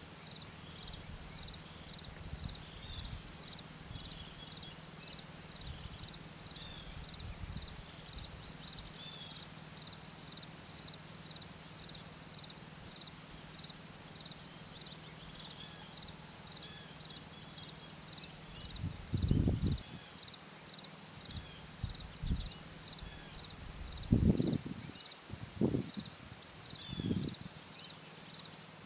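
Insects chirping in a steady, high-pitched pulsing chorus. Several low thumps or rumbles come through in the last third.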